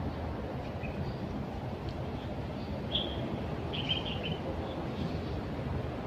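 Steady low rumble of street traffic, with a few short bird chirps over it, the clearest about three and four seconds in.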